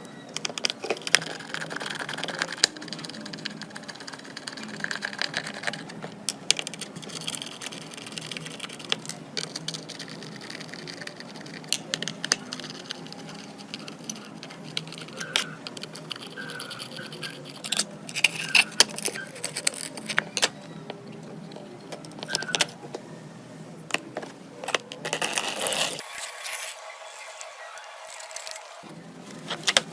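Repeated small clicks, taps and light scrapes of hand tools and small parts being handled during a Samsung device rebuild.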